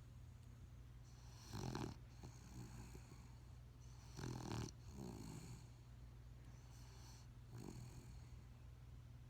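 Slow snoring during sleep: two loud snores about one and a half and four and a half seconds in, a weaker one near the end, and soft breaths between.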